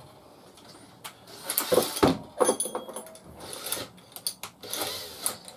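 Plywood box knocking and scraping as it is handled on a wooden workbench, with metallic clinks of screws being picked out of a tin.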